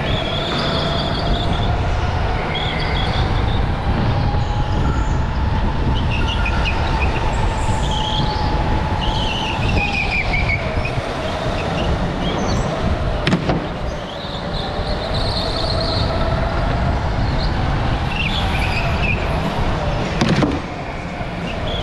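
Go-kart at racing speed: the kart's motor whine rising and falling as it speeds up and slows for corners, tyres squealing in short chirps through the turns, and two sharp knocks, about thirteen and twenty seconds in.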